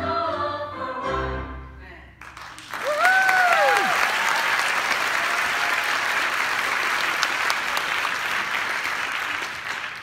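A group of singers with piano hold the final chord of a song, which stops about two seconds in. An audience then breaks into steady applause, with a couple of rising-and-falling whooping cheers just after it starts.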